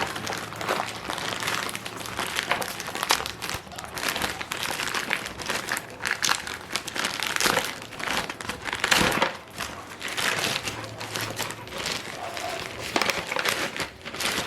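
Plastic parcel packaging and bubble wrap crinkling and rustling in irregular bursts as a package is handled and unwrapped.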